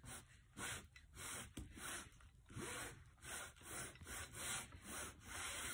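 Metal baren rubbed around over the back of printing paper on an inked linoleum block, pressing the ink onto the paper: a faint, repeated scuffing about twice a second.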